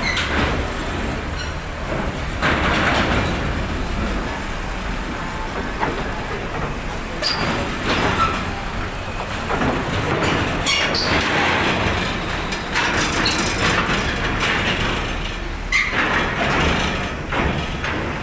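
Heavy vehicles rolling over a ferry's steel loading ramp and deck grating: continuous metallic rattling and clanking over a low engine rumble, with sharp metal knocks now and then.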